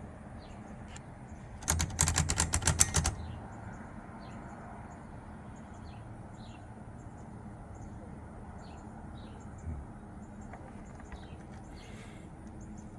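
1954 Smith-Corona Skyriter portable typewriter clacking: a quick run of about a dozen sharp clacks lasting about a second and a half, about two seconds in. Faint bird chirps can be heard in the background.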